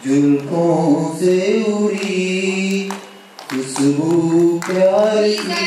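A person singing a song with long held notes and little or no instrumental backing, with a short break about three seconds in.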